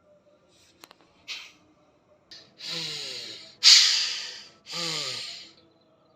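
A person's forceful breaths through nose and mouth. A click and a few short puffs come first, then three long, noisy blasts in the second half; the middle one starts suddenly and is the loudest, and the other two carry a falling voiced groan.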